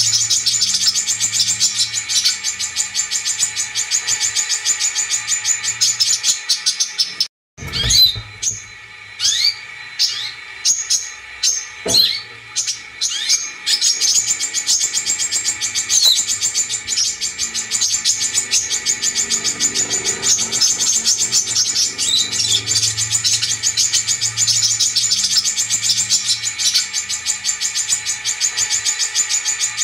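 Brown-throated sunbird song played as a bird-trapping lure recording: a fast, continuous chattering of high chirps. It cuts out abruptly about seven seconds in, gives way to scattered single chirps for several seconds, then the dense chattering resumes.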